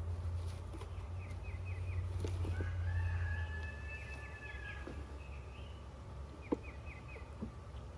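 Birds calling outdoors: a quick run of four chirps repeats three times, and a longer held call sounds in the middle. A low hum underneath drops off about halfway through, and a single sharp tap comes after the middle.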